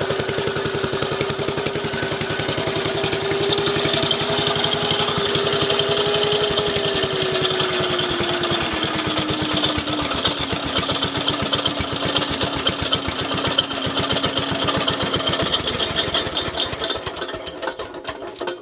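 Single-cylinder air-cooled engine of an old Howard rotary tiller running with a rapid steady beat, its speed dropping in steps about halfway through, then slowing and stopping near the end as it is shut down. The engine has been rebored and re-ringed on its old piston, leaving about 2 mm of piston slap.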